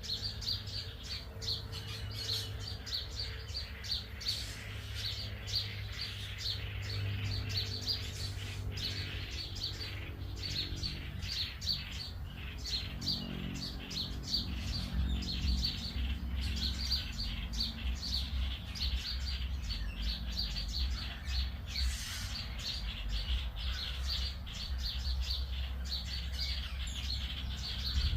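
Many small birds chirping and tweeting in quick, overlapping notes, high-pitched and continuous. A steady low hum runs underneath.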